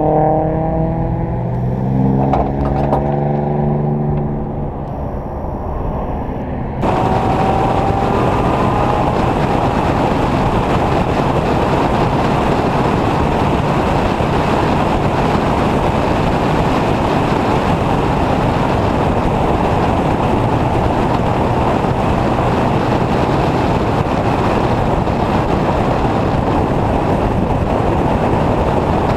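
For the first several seconds an engine note rises and falls over a quieter background. After an abrupt cut about seven seconds in, the Ford Pinto race car's engine runs hard at speed, heard from on board, with dense steady wind and road noise and a brief rise in pitch just after the cut.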